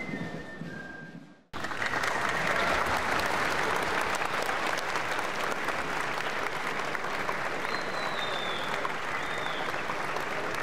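A band's music fades out, and after a sudden break about one and a half seconds in, a large audience applauds steadily.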